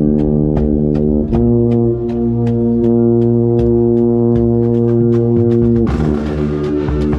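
Drum corps brass line, heard from within the contrabass bugle section, playing loud sustained chords that shift about a second in and again near the end. Sharp percussion strikes tick over the held brass.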